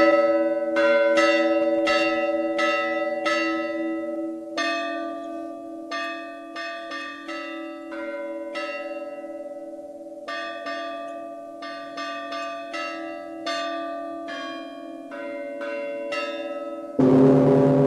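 Russian Orthodox church bells rung by hand in a zazvon, the opening peal of a Paschal trezvon: small bells struck in quick succession, about two to three strokes a second, each stroke ringing on. About four and a half seconds in a lower bell joins, and near the end the sound changes suddenly to a louder, deeper ringing.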